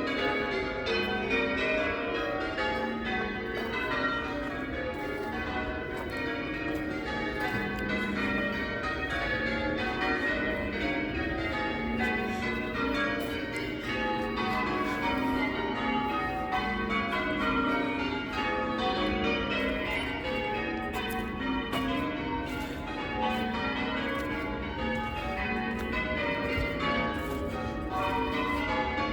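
Change ringing on a ring of eight church bells, most of them cast in 1694 by Philip Wightman. The bells strike one after another in continuous rows without a break, their tones overlapping as each rings on.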